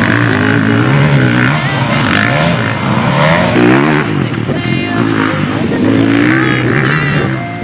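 Several motocross dirt bike engines revving up and down at once, their pitch rising and falling with the throttle and gear changes.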